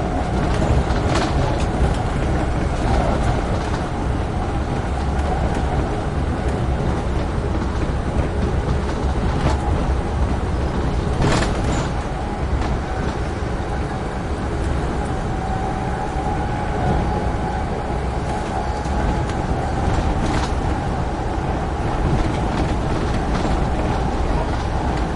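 Amtrak Northeast Regional passenger train running at speed, heard from aboard: a steady rumble of wheels on rail, with a few sharp clicks, the loudest about eleven seconds in, and a faint steady whine in the second half.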